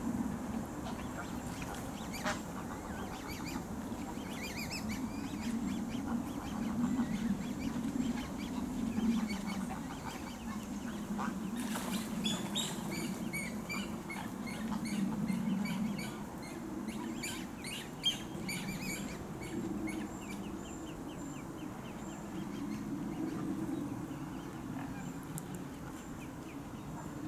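Ducks quacking on the water, with small birds chirping and trilling in the trees, busiest partway through. One short sharp tap sounds about two-thirds of the way in.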